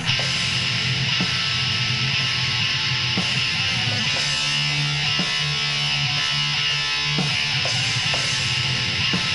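Black metal music: distorted electric guitars strummed in a dense, steady wall of sound with drums, as recorded on a 2005 demo.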